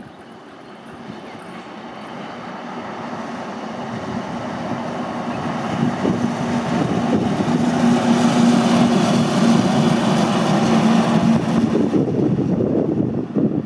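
Diesel engine of a DR V100 (class 298) diesel-hydraulic locomotive running as it moves past, growing louder over the first several seconds and holding a steady engine drone at its loudest.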